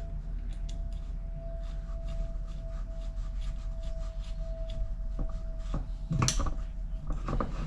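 Lathe carriage parts and tools being handled as a part is taken off: scattered light clicks and rubbing, with a sharp knock about six seconds in and another near the end, over a steady hum and a faint steady whine.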